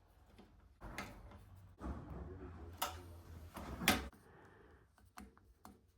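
Sharp knocks and clicks, the loudest three about a second apart, with rustling between: hand tools and bicycle parts being handled during a workshop repair.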